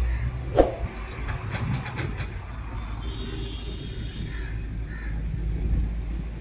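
Ford 3610 tractor's three-cylinder engine idling with a steady low rumble. A single sharp knock comes about half a second in, followed by a few lighter clicks.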